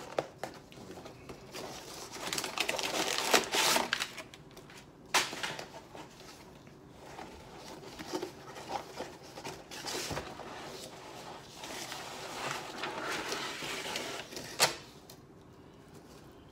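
A cardboard box and its paper packaging being opened and handled by hand: irregular rustling and scraping, with a few sharp knocks spread through as the skateboard deck is pulled out.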